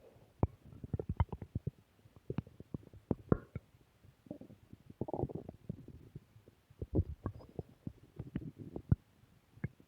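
Human stomach and bowels growling: an irregular run of gurgles, pops and clicks, with longer bubbling gurgles about three and five seconds in.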